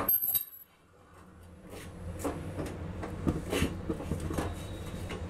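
A sharp knock right at the start, then light taps and scrapes as a bajra roti is handled, pressed and turned by hand on a hot iron tawa, over a low steady hum.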